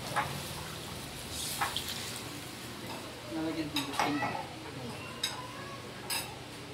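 Chicken simmering and sizzling in an aluminium wok, with about half a dozen sharp clinks against the pan.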